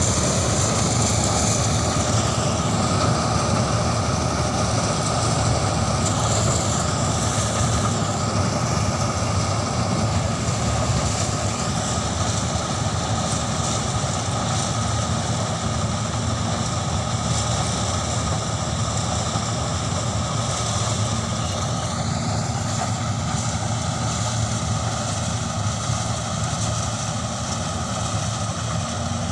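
Corn harvesting machine's engine running steadily, a continuous low hum with mechanical noise above it.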